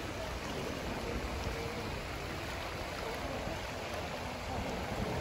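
Small sea waves lapping against a rocky shoreline, a steady rushing water noise.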